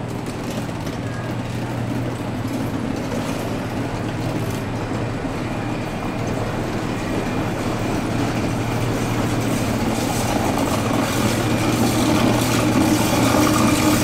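Rhaetian Railway world-record train of coupled Capricorn electric multiple units rolling past, a steady running noise with a low hum that slowly grows louder.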